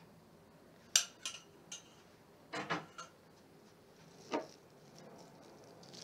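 A spoon clinking and tapping against a rice bowl as sauce is spooned over the food: a sharp clink about a second in, a couple of lighter taps just after, a quick cluster of taps near the middle, and one last knock shortly after four seconds.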